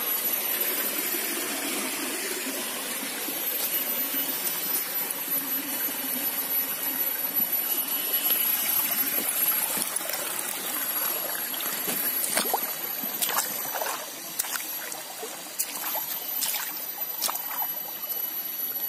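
Shallow stony forest stream trickling and burbling over rocks, with a few sharp clicks in the second half.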